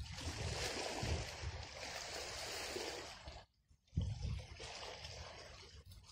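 Outdoor wind and water noise: wind buffeting the microphone in uneven low rumbles over a steady wash of sea water against the rocks. The sound cuts out for about half a second near the middle, then resumes.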